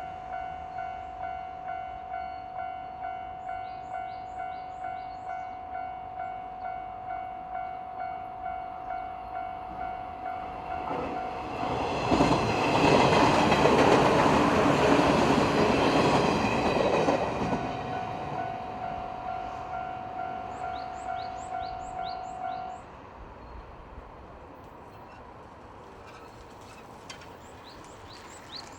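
Japanese level-crossing alarm ringing its steady repeating ding while a train passes through the crossing, its rumble and wheel noise swelling loud midway and then fading. The alarm cuts off a few seconds after the train has gone, leaving quieter outdoor background with a few short bird chirps.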